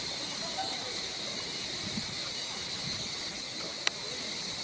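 Steady high-pitched drone of forest insects, with one sharp click about four seconds in.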